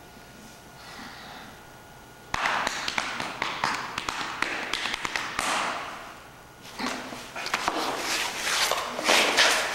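Rapid hand slaps on a person's chest and body as body percussion, a dense run of quick taps that starts about two seconds in, drops away briefly near the middle and then resumes as the two grapple.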